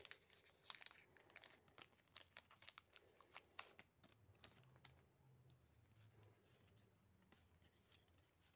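Faint crinkling and crackling of a torn-open Pokémon booster pack's foil wrapper as the cards are slid out, busiest in the first few seconds, then softer rustling of the cards being handled.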